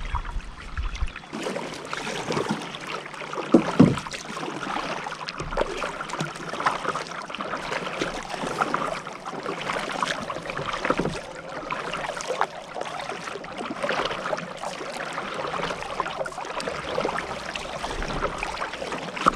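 Kayak paddle dipping into river water, with splashes and drips off the blade.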